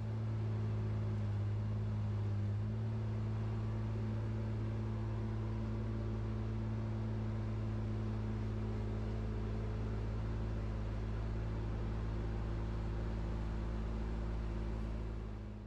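Engine of an ASV mini tracked skid steer running at a steady speed. It fades in at the start and fades out near the end.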